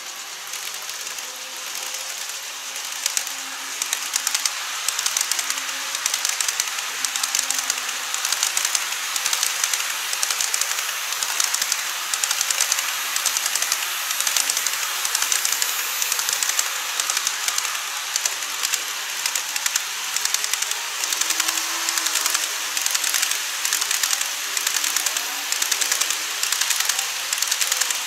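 Model trains of a JR East E257 series 2000/2500 and an E233 series 3000 running on plastic viaduct track: a steady hiss of wheels and motors with rapid, uneven clicking of wheels over the rail joints. It gets louder about three seconds in as the first train comes close.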